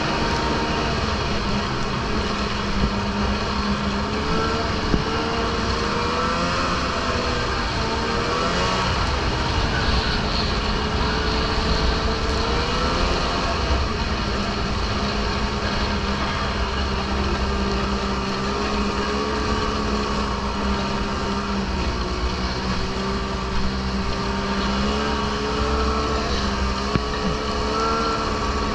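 Snowmobile engine running under way, its pitch rising and falling as the throttle changes, over a steady low rumble, with a few small knocks from the ride.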